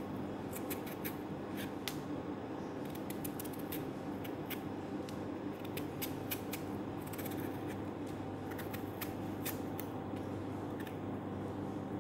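Kitchen knife paring the skin off a piece of watermelon rind held in the hand: a run of short, crisp, irregular cutting clicks in clusters. A steady low hum runs underneath.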